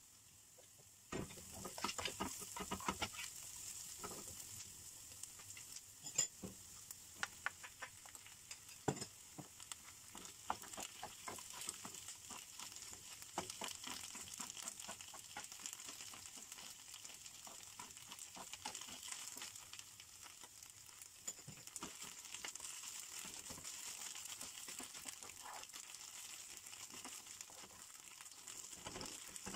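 Chopped onion, garlic and drained spinach frying in a nonstick frying pan, sizzling steadily, with frequent taps and scrapes of a spatula stirring. The sizzle starts up suddenly about a second in.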